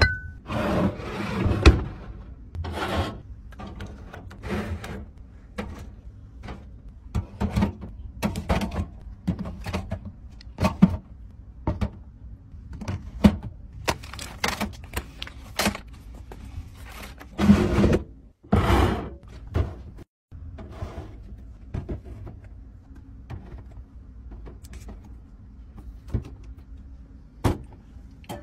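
Bottles, jars and packages being handled and set down in wire mesh organizer bins inside an under-sink cabinet: a string of irregular knocks, clunks and rustles, with a louder cluster of knocks about two thirds of the way through.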